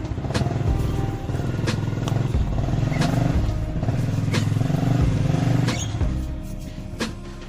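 An engine running steadily, with a few sharp clicks; it drops in level about six seconds in.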